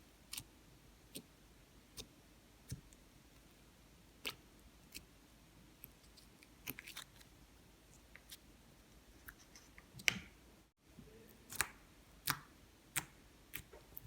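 Slime being pressed and worked by hand, giving off sharp little clicks and pops, roughly one a second, with a few coming in quick clusters.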